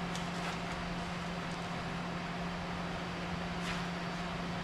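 Steady machine hum: one constant low tone over an even hiss, like a fan or other running machine, with two faint clicks, one near the start and one toward the end.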